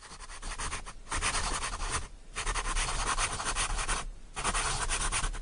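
Pen scratching across paper in quick strokes, the writing sound effect for animated handwriting. It runs in spells broken by short pauses about one, two and four seconds in.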